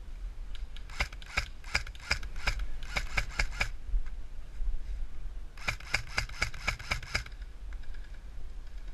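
Airsoft M4 rifle firing two strings of rapid shots, each shot a sharp click: about a dozen starting a second in, then a shorter string of about seven near six seconds.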